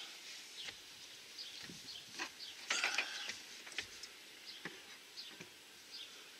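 Light handling noises: a few knocks and a short clatter about three seconds in, as a corded drill is picked up and set against a wall-mount plate on wood paneling. Short, faint bird chirps are heard now and then.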